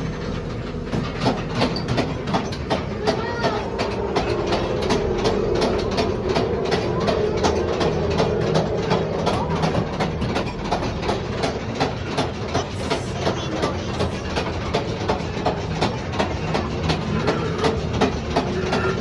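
Ride train rolling through a mine tunnel, its wheels clicking evenly over the rail joints about two to three times a second over a steady rumble. A steady hum rises under it in the middle stretch.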